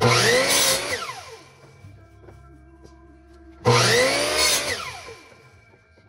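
Electric miter saw cutting wood twice, about four seconds apart: each time the motor starts, runs loud through a short cut, and then whines down in pitch as the blade coasts to a stop.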